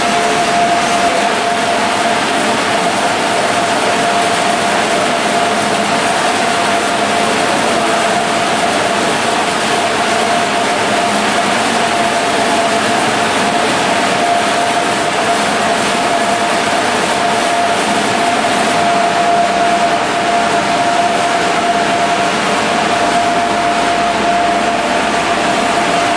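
Olive oil mill machinery running: a loud, steady mechanical din of electric motors and conveyors with a constant whine held through it.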